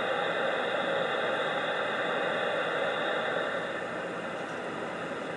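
CB radio receiver hissing with steady static on an open channel between transmissions, a little quieter about two-thirds of the way through.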